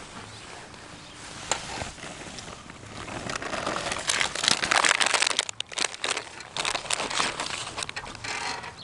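A Cheetos snack bag crinkling as it is handled, in a dense run of crackles that is busiest about halfway through.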